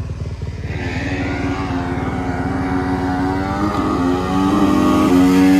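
Motorcycle engine running under throttle, growing louder as the bike approaches and loudest near the end as it comes close.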